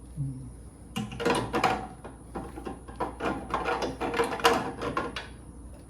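Irregular clicking and clattering of hard objects being handled, like parts or tools being picked up and set down, for about four seconds.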